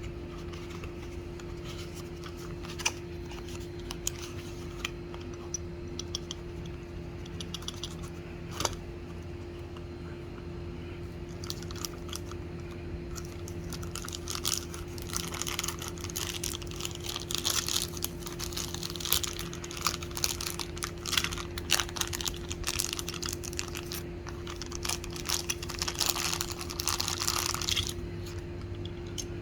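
A toy car's box and packaging being handled: scattered clicks and taps at first, then from about a third of the way in a long stretch of dense crinkling and rustling that stops shortly before the end.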